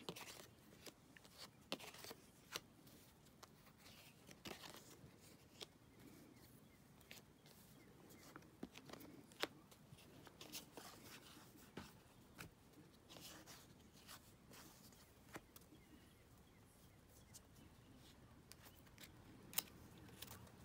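Faint, scattered clicks and brief rustles of baseball cards being handled, shuffled and set down one by one, between stretches of near silence.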